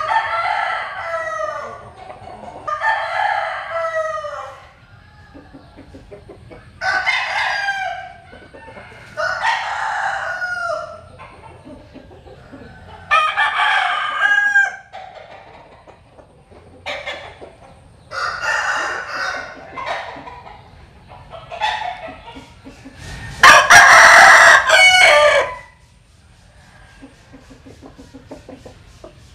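Roosters crowing, one long crow after another every two to three seconds, about eight in all. The loudest and longest crow comes about four-fifths of the way through.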